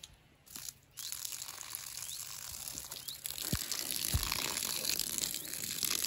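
Water running out of a hose outlet through an open blue ball valve, a thin stream splashing onto the grass. It starts about a second in and grows a little louder. The stream is weak, showing low pressure in the water line, which is leaking somewhere.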